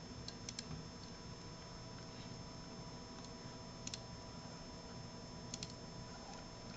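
Computer mouse or touchpad button clicks, a few quick double clicks seconds apart, over a faint steady hum from the computer.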